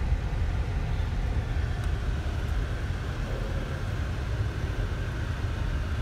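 Steady low rumble of a car's engine and tyres on the road, heard from inside the cabin of a slowly moving car.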